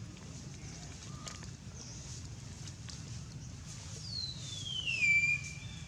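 A monkey's single high-pitched cry, falling in pitch and then holding, lasting about a second and a half near the end, over a steady low background hum.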